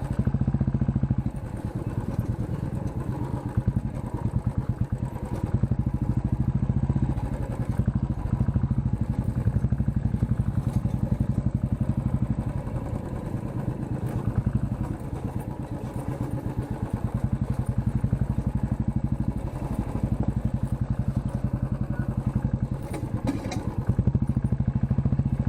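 Motorcycle engine running steadily at low speed under way, with a fast, even exhaust beat.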